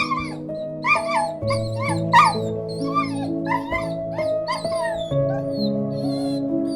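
A dog giving a series of short, high-pitched cries, about two a second at first and sparser later, over slow background music with long held notes.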